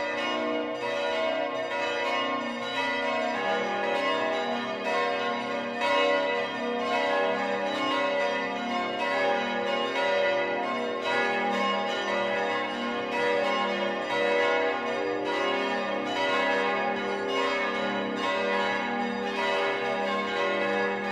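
Several large bronze church bells, the 1960 Pfundner bells of St. Stephen's Cathedral's south tower, swinging and ringing together in full peal, heard at close range inside the bell chamber. The strikes overlap into a continuous clangour of many pitches.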